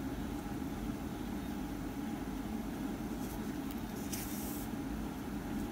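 Steady low background hum, with brief soft rustles a little after three seconds and again just after four seconds in, as yarn is drawn through a crocheted piece with a yarn needle.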